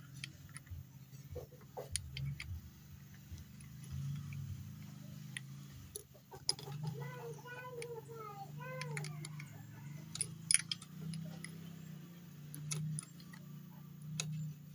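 Small metal clicks and clinks of a hand tool working the cam chain tensioner bolts on a BM 150 motorcycle engine while the tensioner is taken off, over a steady low hum. A high voice-like call sounds in the background a few times between about 7 and 9 seconds in.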